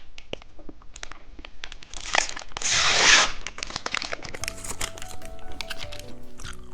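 Plastic snack wrapper crinkling and being torn open, with the longest tear about two to three seconds in. A simple plinking melody of background music starts about four and a half seconds in.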